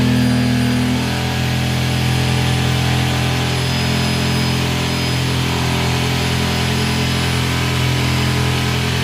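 An electric power tool's motor running steadily and loudly, a constant hum with no let-up.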